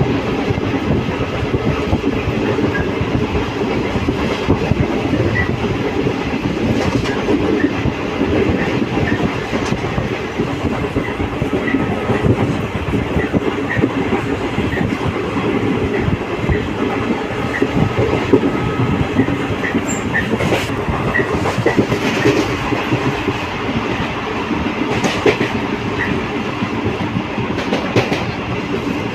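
Passenger train running along the track: a steady rumble with wheels clattering over the rail joints and scattered small clicks.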